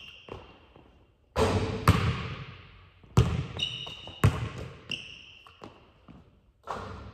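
Basketball bouncing hard on a hardwood gym floor, about half a dozen impacts, each ringing out in the large hall, with short high sneaker squeaks on the court in between.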